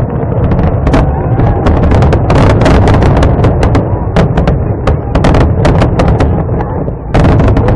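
Fireworks going off in a dense, loud barrage: many sharp bangs and crackles in quick succession over a continuous low rumble, with a short lull about seven seconds in.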